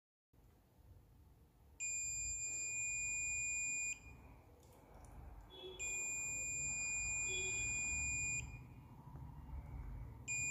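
Mastech digital multimeter's continuity buzzer giving a steady high-pitched beep for about two seconds, twice, and starting a third time near the end, as the probes touch capacitors on the phone board. The beep signals a short to ground: the shorted capacitors in the phone's secondary power line, a half short.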